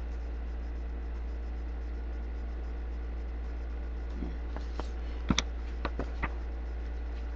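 Steady low background hum, with a handful of light, sharp clicks and taps about five to six seconds in.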